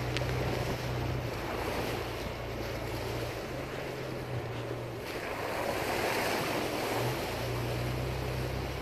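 Off-road vehicle's engine running at low speed while driving a muddy track: a steady low drone whose pitch shifts slightly a few times, under a constant rushing noise of wind and tyres that swells for a couple of seconds in the middle.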